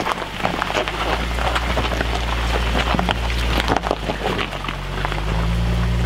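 Range Rover SUV crawling over a loose, rocky trail: stones crunching and popping under the tyres over a steady low engine hum. The engine note rises a little about five seconds in as it climbs.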